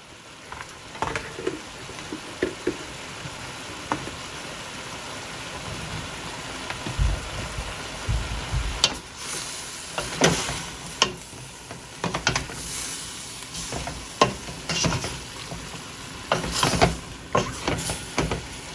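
Shrimp and broccoli sizzling in a stainless steel pan while being stir-fried with a wooden spoon. From about halfway through, the spoon scrapes and knocks against the pan in irregular clicks over the steady sizzle.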